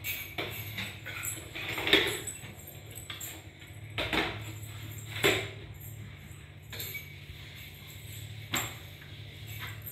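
Several separate knocks and clinks a second or more apart, from a toy ball and bottles being played with.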